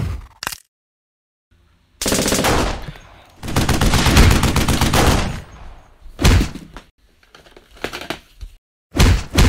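Rapid bursts of machine-gun-style gunfire: a long burst starting about two seconds in, then several shorter bursts.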